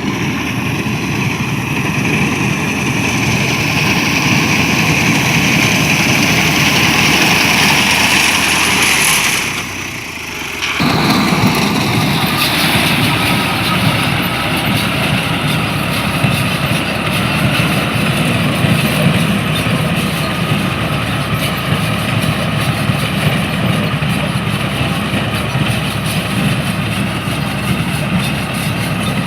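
Wheat-harvesting machinery running steadily, a loud engine with a dense mechanical rush. The sound drops briefly about ten seconds in, then carries on as before.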